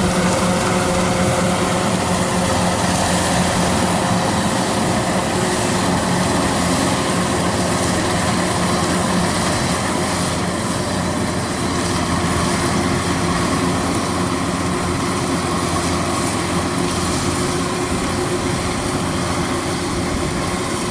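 Kubota DC-93 combine harvester running steadily under load while cutting lodged rice: a constant diesel engine drone mixed with the noise of the cutting and threshing machinery.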